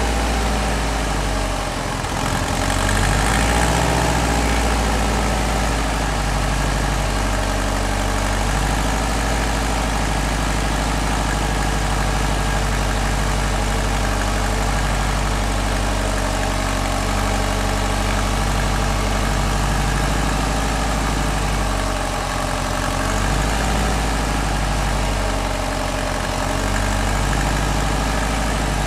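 Subaru STI's turbocharged flat-four engine idling steadily, the idle lifting slightly a few times. The owner reports a clicking from the Garrett GT35R turbocharger's compressor housing that comes through when the revs rise.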